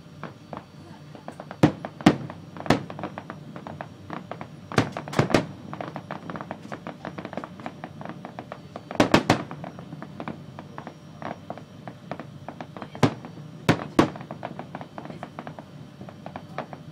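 Aerial fireworks bursting: sharp bangs at irregular intervals, several loud ones in quick clusters, with lighter crackling between them.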